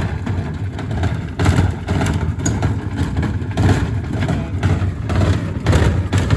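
Gorenje SensoCare washing machine running with heavy bricks in the drum: a loud, steady low rumble with irregular knocks as the bricks bang about inside.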